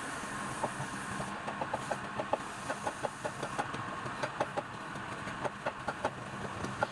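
A run of light, irregular taps or knocks, a few a second, over a steady mechanical hum.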